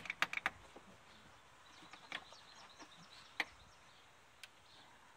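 Sharp plastic-and-metal clicks and knocks of hands and a tool working the clamps in a car's engine bay: a quick run of four clicks at the start, then a few single clicks spaced a second or so apart.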